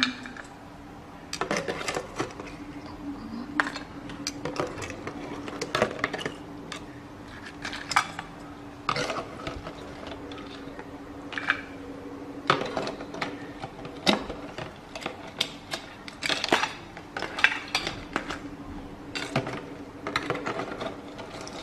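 Metal tongs clicking and knocking against a plastic jar and the shells of salted crabs as the crabs are lifted out of the brine and set on a plate, in irregular sharp clicks. A steady low hum runs underneath.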